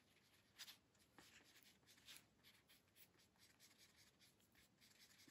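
Faint, quick scratching strokes of a paintbrush mixing acrylic paint on a paper-plate palette, with a couple of louder strokes about half a second and two seconds in.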